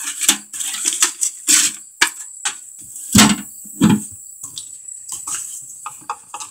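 Irregular knocks, clatters and scrapes of things being handled and moved on wooden boards and shelves, with a few heavier thumps about one and a half, three and four seconds in. A faint steady high tone runs underneath.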